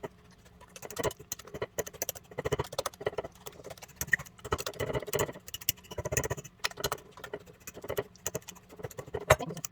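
A fork mashing very ripe bananas in a bowl: a quick, irregular run of taps and scrapes of the fork against the bowl with soft squishing.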